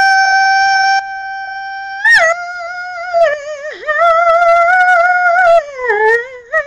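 A woman singing a long, high, wordless held note. About two seconds in she slides to a slightly lower note with vibrato, and near the end her voice falls away in pitch.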